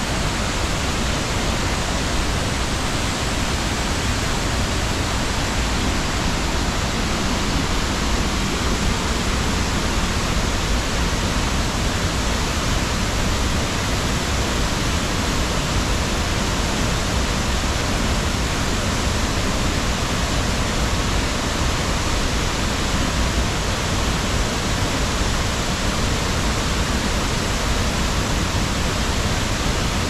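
Waterfall: falling water making a steady, even rush with no breaks or changes.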